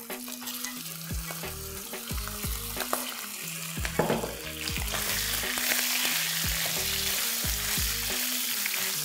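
Boiled bone-in mutton pieces sizzling as they fry in hot ghee and oil in a stainless steel wok and are pushed around with a silicone spatula. The sizzle grows louder about halfway through, and a sharp knock comes about four seconds in.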